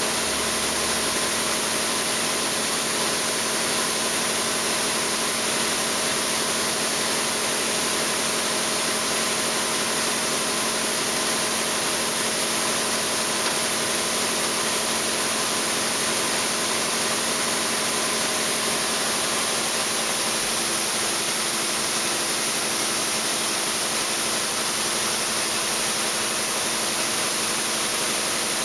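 Hitachi Seiki HG400 III CNC horizontal machining center running: a steady machine hum with a constant high hiss and no distinct events.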